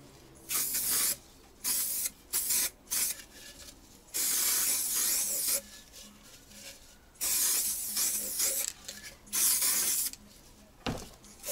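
Aerosol spray-paint can hissing in repeated bursts as flower pots are sprayed: several short puffs in the first three seconds, then longer sprays of about a second and a half each.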